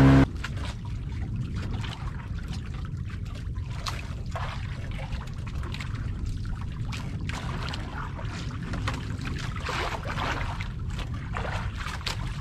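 A boat engine's hum cuts off abruptly right at the start. Then water laps and splashes irregularly against the hull of a drifting wooden outrigger boat, over a steady low rumble.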